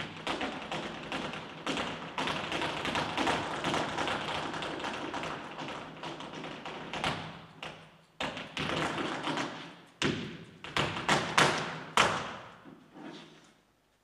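Flamenco zapateado: a dancer's shoes striking the stage floor in fast, dense heel-and-toe strokes. There is a short break about eight seconds in, then a run of loud single stamps from about ten seconds that dies away just before the end.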